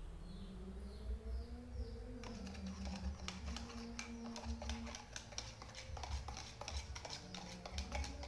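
Rapid, irregular light clicks and taps that start about two seconds in and keep going, over a low steady hum.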